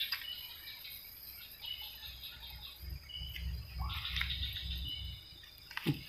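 Night insects such as crickets chirping in a fast pulsing trill, with short high chirps among them. A low rumble of handling noise comes through the middle, and a sharp knock sounds near the end.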